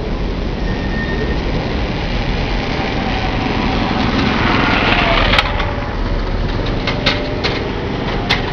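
Street traffic noise with a steady low rumble, swelling as a vehicle passes about five seconds in, followed by a few sharp clicks.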